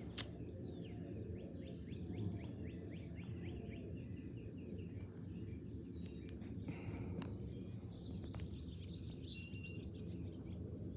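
Birds chirping and calling, with a quick run of repeated chirps in the first few seconds and scattered calls after, over a steady low background hum.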